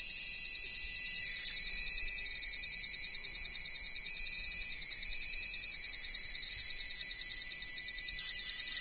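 High-pitched electrical hiss and whine from a running Don Smith-style spark-gap coil circuit, with a fast, even clicking beep. The builder takes the clicking beep to follow the firing rate of the spark gap.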